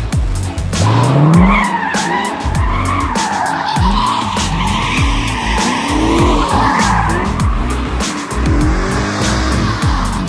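Straight-piped C4 Corvette V8 revving up and down hard, the revs rising and falling about once a second, while its rear tyres squeal and skid in a smoky burnout slide.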